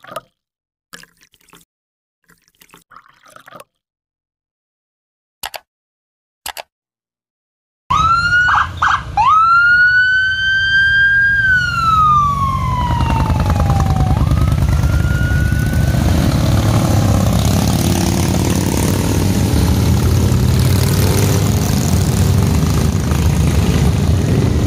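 Near silence with a few faint clicks, then about eight seconds in a police siren starts: two short yelps, one long wail that climbs and then slowly falls, and a brief second rise. After that comes the steady rumble of a convoy of Harley-Davidson motorcycles riding past.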